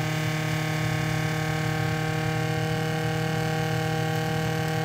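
Bolt Buster handheld flameless induction heater running, a steady electric hum, as its coil heats a seized nut toward red hot.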